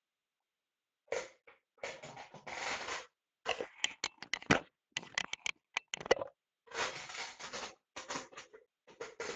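A paperback book being handled close to the microphone: its pages and cover rustling and scraping in irregular bursts, with sharp clicks.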